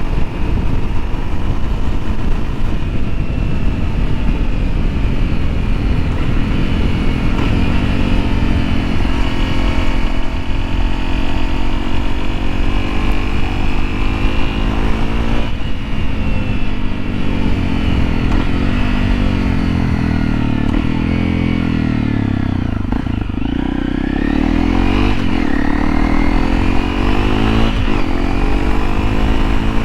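2013 Honda CRF250L's single-cylinder engine running under way, its pitch rising and falling repeatedly as it speeds up and slows down, with a deeper drop and climb back up about three quarters of the way through, over a steady low rumble.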